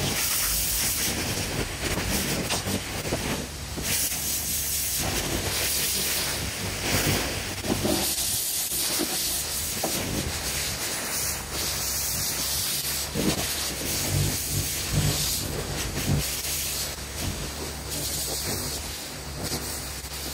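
Pressure washer lance blasting water onto stone paving slabs: a loud steady hiss that swells and eases as the jet moves, over the low steady hum of the pressure washer's machine.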